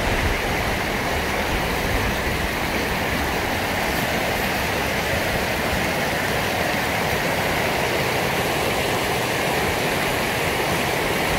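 Mountain creek rushing over a rocky bed, a steady, even roar of water.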